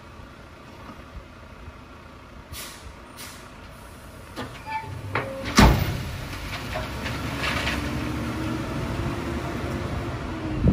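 Dump truck spreading a load of gravel from its raised bed: two short air-brake hisses, a loud bang about halfway through, then the diesel engine and the rumble of gravel sliding out as the truck pulls forward.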